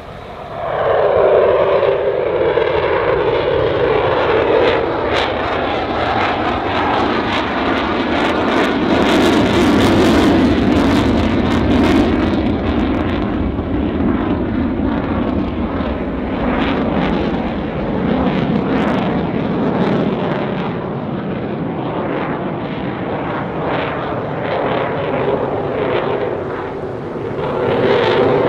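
RAF Eurofighter Typhoon's twin EJ200 turbofans running in afterburner: a loud jet roar that surges in about a second in and drops in pitch as the jet passes. A crackle runs through the middle, and the roar swells again near the end.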